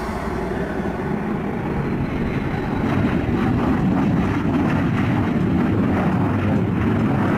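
Engines of a small business jet running loud as it rolls along the runway, a steady jet rumble that grows louder about three seconds in.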